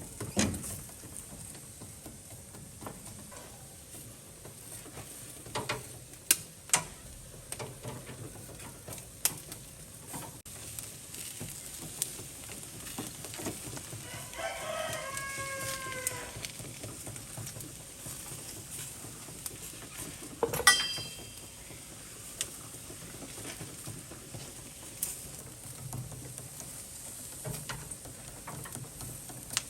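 A rooster crows once, about halfway through, in a single call of about two seconds that drops in pitch at the end. Under it runs a faint steady sizzle, with scattered clicks and a short clatter.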